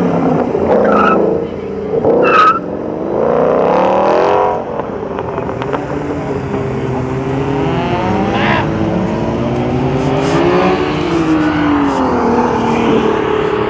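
Ford Mustang GT V8 revving hard in a burnout, loudest for the first few seconds. It then drops in level and pulls away, the engine note rising and falling in pitch as it accelerates through the gears.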